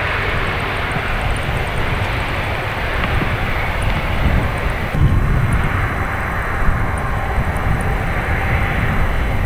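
Jet engines of the Airbus Beluga XL, its two Rolls-Royce Trent 700 turbofans, running steadily as the aircraft rolls along the runway. About halfway through, the high hiss drops back and the low rumble grows stronger.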